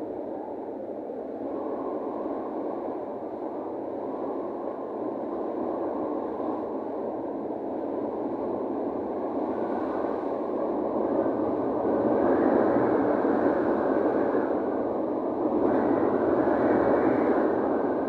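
Wind blowing over the sea from a cruise ship at sea: a steady rushing noise that swells louder in the second half.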